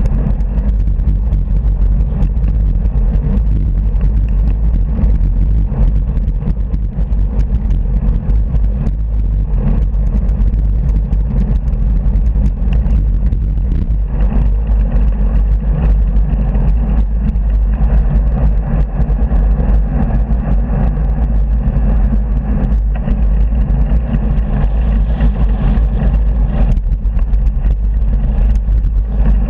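Cars and vans passing close by on a dual carriageway, heard from a moving bicycle, under a steady heavy rumble of wind on the handlebar camera's microphone.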